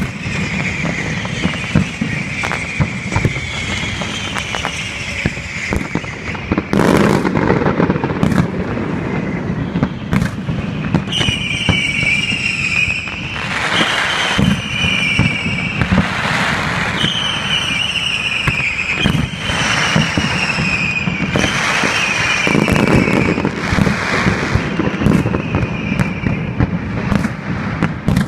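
Aerial fireworks display: continual bangs and crackling, with heavier booms about seven, fourteen, sixteen and twenty-three seconds in. From about eleven seconds in, a string of high whistles, each falling slightly in pitch, rides over the bangs.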